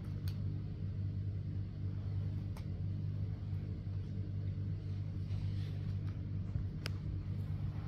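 A steady low hum, with a few faint clicks and knocks from plastic toy monster trucks being handled on a carpet; the sharpest click comes near the end.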